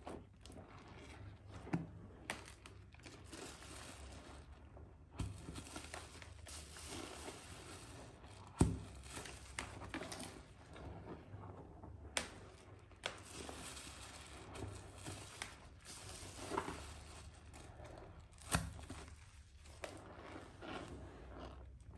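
Hands squeezing and rubbing a soap-soaked sponge in thick lather of soaked Palmolive soap: continuous wet squishing and crackling of foam, with a few sharp snapping clicks.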